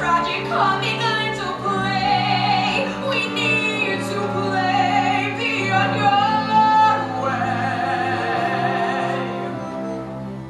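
A woman singing a musical-theatre song over instrumental accompaniment, with long held notes and a wide vibrato on a sustained note in the second half.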